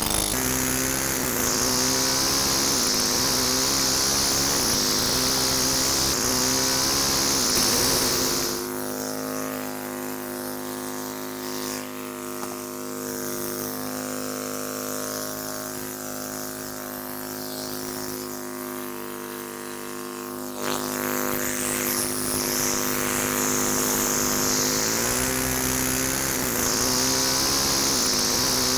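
Pneumatic air hammer with a carbide-tipped chisel chipping into a stone block, set to low pressure. It runs steadily, stops for about twelve seconds from about eight seconds in while a steady hum carries on, then starts again.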